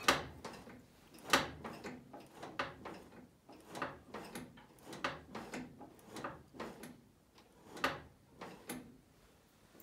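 Accelerator pedal and cable-operated carburetor throttle linkage worked by hand-and-foot with the engine off: a series of irregular clicks and knocks, about one or two a second, as the pedal is pushed and the throttle snaps back on its return spring. This is the test of a newly fitted throttle cable conversion.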